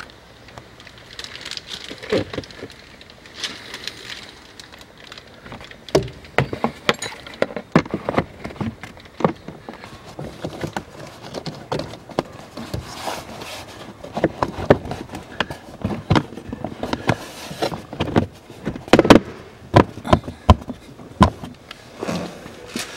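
Irregular clicks, knocks and rustling of plastic trim under a car's dashboard being handled and fitted back in place, with the sharpest knocks coming in a cluster about nineteen to twenty-one seconds in.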